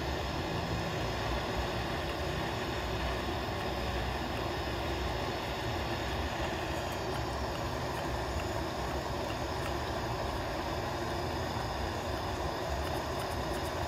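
Propane torch burning with a steady hissing roar as it heats the steel hot end of a 3D-printed Stirling engine's cylinder head, with a few faint clicks from the displacer rod being worked by hand.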